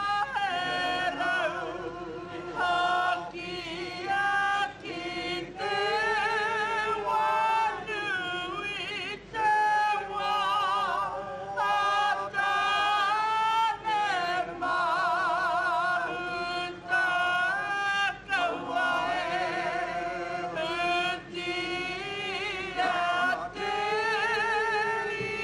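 Voices singing a slow, melodic song: long held notes with a wavering vibrato, sung in phrases with short pauses between them.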